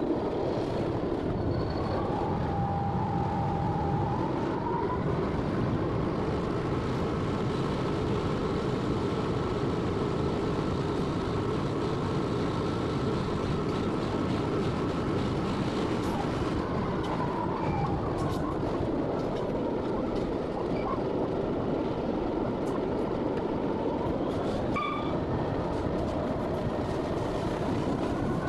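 A British Rail Class 66 diesel locomotive under way, heard from the cab: its EMD two-stroke V12 engine runs over the steady rumble of the wheels on the rails. A jet-like turbocharger whine climbs about four seconds in, drops away around the middle, and climbs again near the end.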